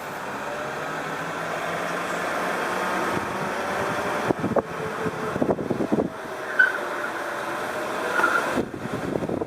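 Car tires squealing and scrubbing on pavement during a slow, half-lock turn at a few miles an hour, with a steady hiss that builds, then irregular chirps from about four seconds in. The owner takes the wheels fighting each other as a sign of faulty alignment and steering geometry.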